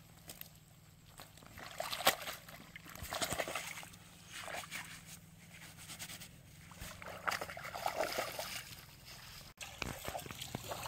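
Shallow water sloshing and splashing as a sack is dipped and emptied into it, in irregular surges with a few sharp splashes.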